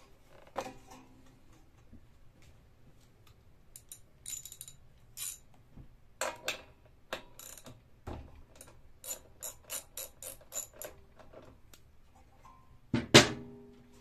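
Socket ratchet clicking in short runs as a spark plug is unscrewed from a small Briggs & Stratton OHV mower engine. The clicks come about two to three a second in the longest run. A single louder clunk comes about a second before the end.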